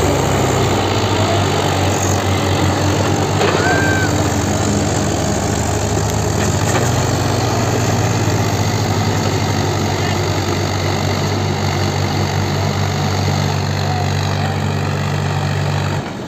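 Diesel engines of two Mahindra tractors running hard and steady under load as they pull against each other on a chain in a tug-of-war. The engine note shifts about halfway through and drops off sharply near the end.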